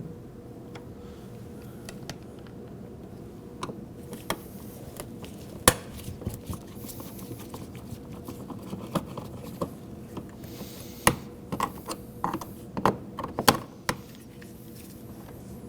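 Scattered light clicks and taps, with one sharper click about six seconds in and a cluster of clicks in the second half: a Phillips screwdriver backing screws out of a car's plastic door trim.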